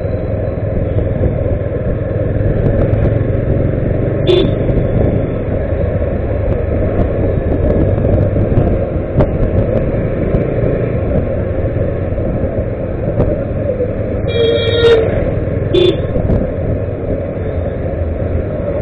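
Steady road and wind rumble from a moving scooter in street traffic, with vehicle horns honking: a short toot about four seconds in, then a longer honk followed by another short toot about fifteen and sixteen seconds in.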